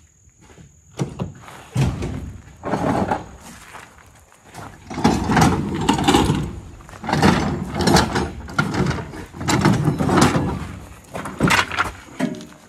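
Heavy metal gear being handled: repeated clunks and scraping, with sharp knocks, in a string of noisy bursts about a second long. Crickets chirp faintly behind them.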